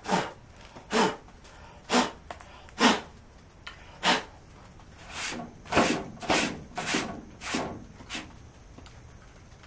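Repeated short puffs of breath blowing loose baking soda off a super glue and baking soda repair, clearing the excess filler. About one puff a second at first, then quicker from about halfway through.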